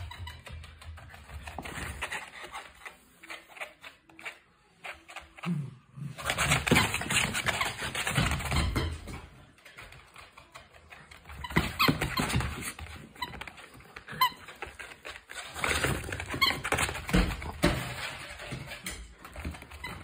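Rubber eggplant squeaky toy squeaking in repeated short bursts as a miniature dachshund bites and chews it, with quieter gaps between the bouts.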